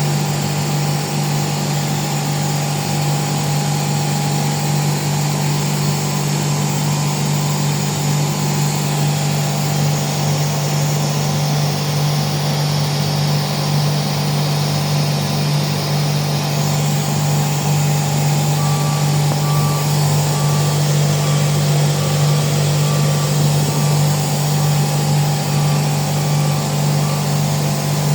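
Oil-injected rotary screw air compressor running steadily with a constant low hum. In the second half a faint tone beeps on and off over the top.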